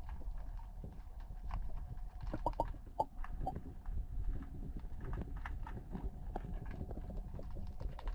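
Underwater recording: irregular sharp clicks and knocks over a steady low rumble, loudest in a cluster between about two and three and a half seconds in, with a faint steady hum beneath.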